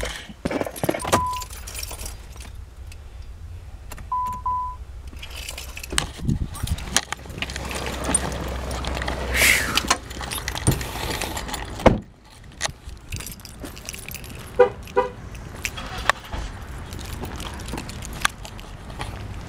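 Getting out of a parked car: keys jangling and clicks of handling, two short electronic beeps early on, and a car door shutting with a sharp knock about twelve seconds in, after which the low cabin rumble stops.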